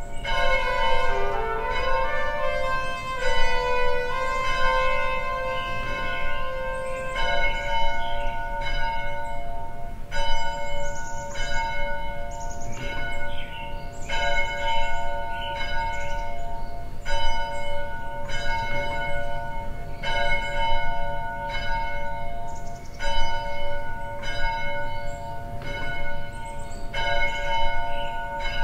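Church bell ringing. Several different notes sound in the first few seconds, then it settles into a steady stroke about every second and a half, each stroke ringing on into the next.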